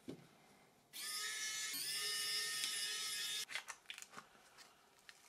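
A small electric motor whines steadily for about two and a half seconds, starting and stopping abruptly, followed by a few light clicks.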